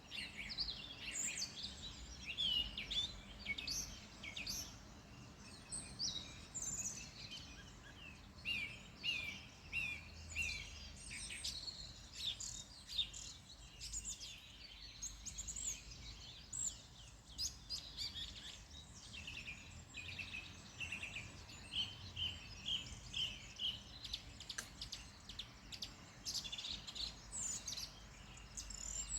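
Several small songbirds singing and chirping, with busy overlapping calls and short repeated trills throughout, over a faint low background rumble.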